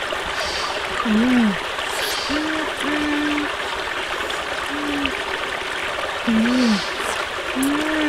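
Steady rush of a small flowing stream. Over it come a few short, low tones that dip and rise, several times.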